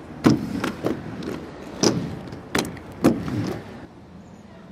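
Skateboards on concrete: four sharp clacks of boards striking the ground, each trailing into the rumble of hard wheels rolling.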